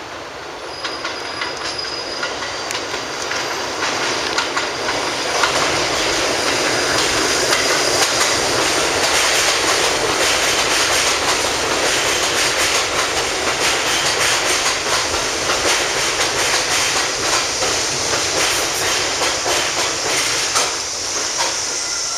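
New York City Subway R62A train pulling into an elevated station, its steel wheels clattering over the rail joints. The noise builds over the first few seconds as the cars reach the platform, then stays loud as the train runs past and slows.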